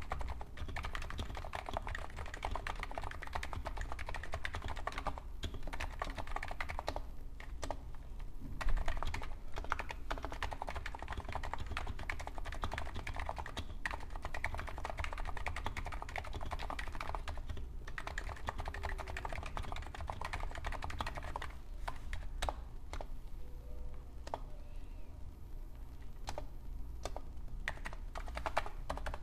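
Typing on a Hansung GTune CHL8 electrostatic capacitive keyboard with 50 g keys and stock keycaps: fast, continuous keystrokes with a few brief pauses, and one heavier thump about nine seconds in. Near the end the typing thins out to scattered single key presses.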